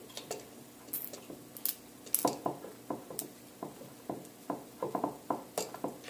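Hands handling a plastic electrical box and a wired outlet on a plywood workbench: a rapid string of light clicks and knocks, sparse at first and then denser and louder from about two seconds in.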